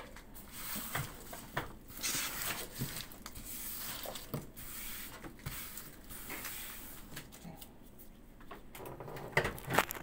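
Scattered knocks and clicks of a ceramic dish and plate being handled on a countertop, with a rustling hiss through the middle and a cluster of sharper clicks near the end.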